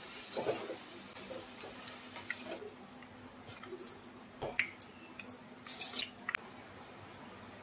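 Hot oil sizzling as par-fried potato sticks are lifted out with a wire-mesh spider strainer, with scattered light clicks and taps of the metal strainer against the pan. The sizzle dies down about two and a half seconds in as the fries come out of the oil, and a few sharp crackles come near the end.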